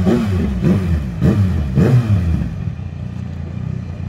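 An engine revved in a quick series of throttle blips, each rising and falling in pitch, about two a second. About halfway through it settles to quieter, steady low running.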